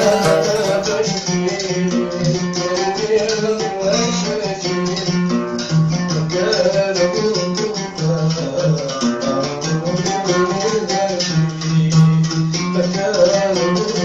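Music: a plucked string instrument played in fast, even strokes over a moving melody, with a rattling percussion part.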